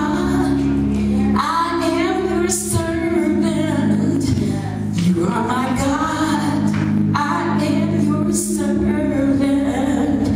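A woman singing solo into a handheld microphone over steady, held low accompaniment chords.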